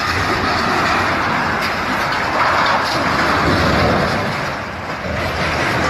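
Heavy vehicle or construction machinery running, a loud steady noise that dips briefly about five seconds in.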